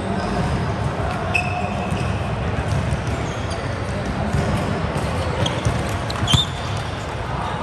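Indoor volleyball game in a sports hall: voices around the court and the ball being hit and bouncing, over a steady background noise. There are a few short squeaks, and a sharp slap about six seconds in is the loudest sound.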